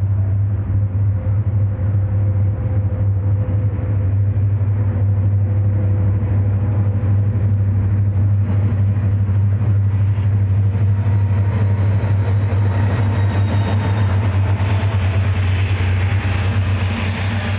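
Southern Pacific diesel freight locomotives approaching and passing close, engines working with a steady deep drone. Higher-pitched wheel and rail noise builds near the end as the lead units go by.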